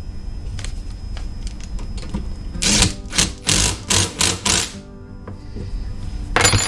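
Cordless impact driver hammering in about six short bursts over a couple of seconds, with one more burst near the end, as it runs down the lock nut on a steering column shaft to lock the adjustment tight. Light clicks of hand tools come before the bursts.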